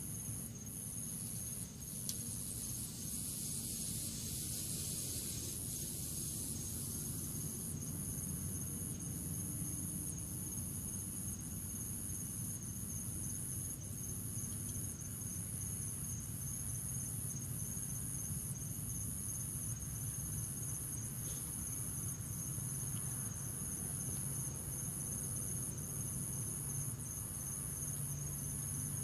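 Crickets chirping steadily in high, evenly pulsing trills, over a continuous low hum.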